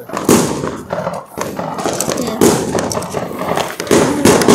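Firecrackers and fireworks going off in the street: a run of sharp bangs, roughly one a second, with crackling between them.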